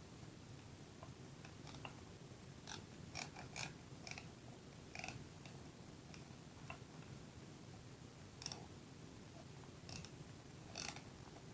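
Faint, scattered light clicks and taps of small plastic and metal parts and a hand tool being handled, about ten at irregular intervals, over a low steady room hum.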